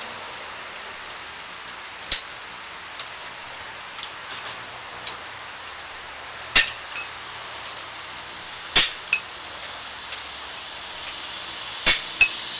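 Irregular sharp clicks and knocks from the sewer inspection camera head and its push cable being handled at the pipe opening, about nine in all and loudest near the middle and end, over a steady hiss.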